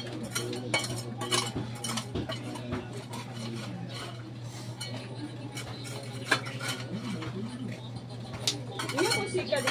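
Irregular sharp clinks and taps of hand tools working on stones and rubble on a dirt floor, over a steady low hum.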